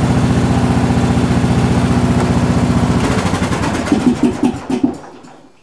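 Craftsman lawn tractor engine idling steadily, then shut off: its firing slows and stumbles with a few uneven pops, and it stops about five seconds in.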